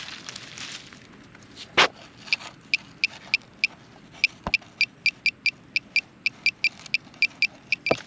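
A metal-detecting pinpointer probe beeping in a string of short, high, evenly pitched beeps as its tip is worked through a clod of dug soil: it is signalling metal in the plug. A loud knock comes about two seconds in, and loose soil rustles at the start.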